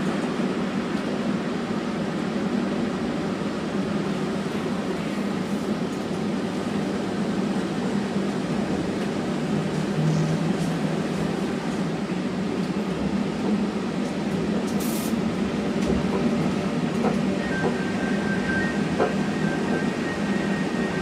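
Steady running noise inside the cabin of the Pearson airport LINK Train, a cable-hauled automated people mover, as it travels along its elevated guideway. Near the end a steady high tone joins in.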